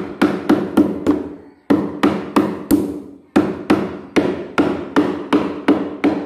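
Claw hammer pounding on a plywood board. It strikes in quick runs of about three to four blows a second, with two brief pauses about a second and a half and three seconds in.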